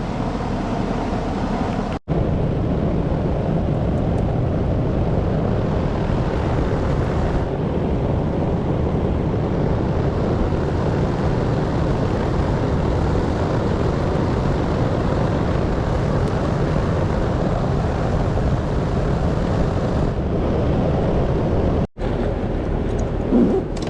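Air-conditioning unit running steadily, a constant even whirring hiss of fan and compressor, freshly charged with refrigerant. The sound cuts out for an instant twice.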